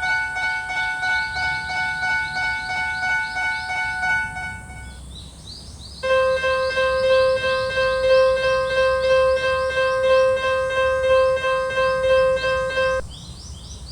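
Japanese railway level-crossing alarm sounding its fast, repeating electronic ding. It stops about five seconds in and starts again a second later at a lower pitch, then cuts out briefly near the end.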